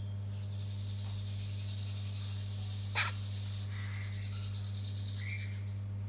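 Steady low hum with a faint high hiss, broken about halfway through by one sharp click. Later, two faint short chirps come from the hand-fed umbrella cockatoo chick.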